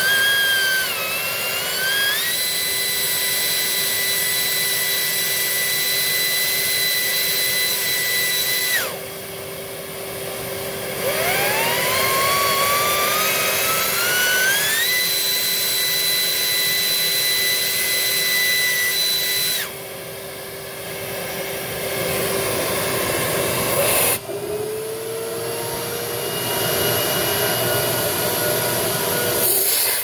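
A digital anemometer's vane spinning very fast in the airflow of a Beam 2900 central vacuum, giving a shrill, incredibly loud whine that glides up and then holds a high steady pitch. It drops away about nine seconds in, glides back up and holds again until about twenty seconds, and a lower whine follows near the end, all over a steady hum from the vacuum's motors.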